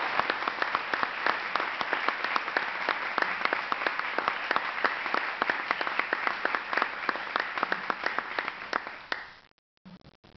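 Audience applauding, many hands clapping at once, dying away about nine seconds in.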